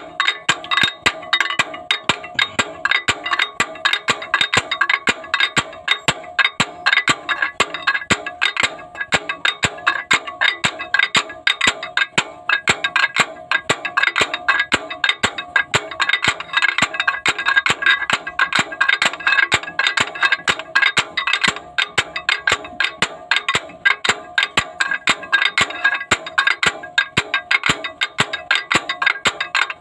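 Homemade slide-hammer puller worked over and over, its sliding steel weight clanking against the stop in a rapid, steady series of ringing metal-on-metal knocks, to draw a broken injector sleeve out of a Caterpillar 3116 diesel cylinder head.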